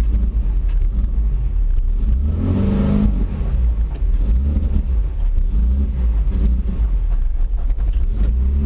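Old Toyota Hilux pickup being driven, its engine running with a heavy low rumble and revving up briefly about two and a half seconds in.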